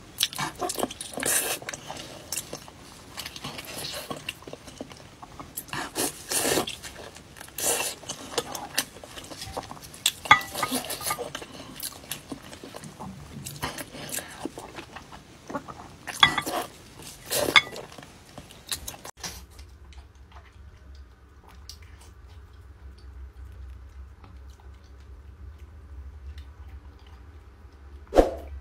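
Close-miked eating sounds: biting, chewing and wet lip smacks, with sharp smacking clicks. About two-thirds through, it drops to quieter chewing over a steady low hum, with a short loud burst near the end.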